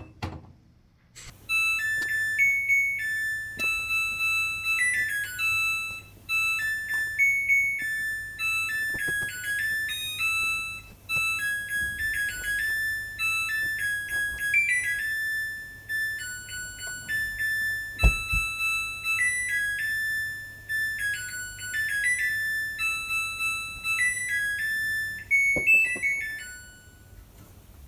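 Background music: a bright electric-piano or keyboard melody of short, stepping notes, starting about a second in.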